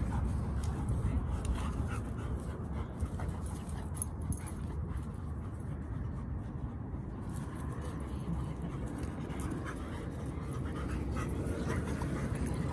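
A cane corso and a black Labrador play-wrestling, making dog sounds and scuffling over a steady low rumble.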